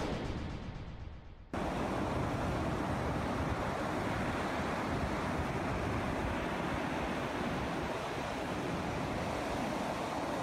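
Surf breaking on a beach, a steady wash of wave noise with wind on the microphone, starting suddenly about a second and a half in after a fading whoosh.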